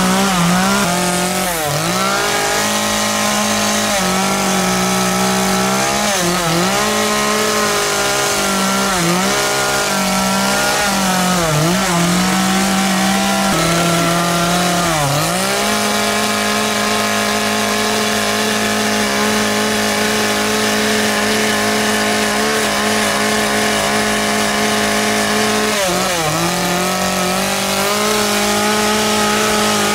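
Chainsaw carving wood, its engine running at high revs. The pitch drops briefly about five times in the first half as the chain bites into the wood and pulls the engine down, holds steady for about ten seconds, then dips once more near the end.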